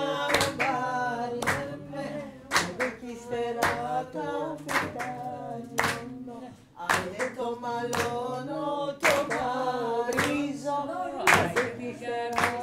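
People singing a song unaccompanied while clapping along together, about one clap a second, with a brief pause in the singing a little after halfway.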